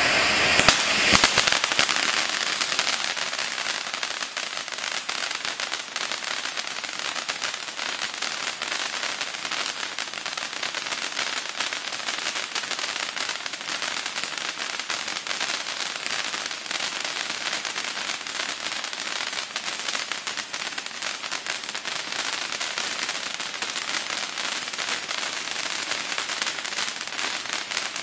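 Firework fountain spraying sparks with a dense, continuous crackle of many small pops. A few louder cracks come about a second in.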